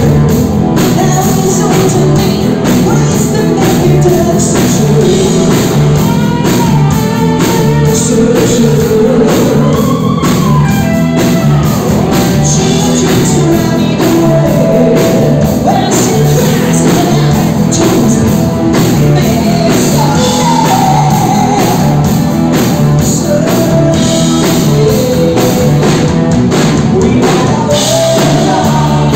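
Live rock band playing a 1980s hard-rock cover: lead singing over electric guitars and a drum kit.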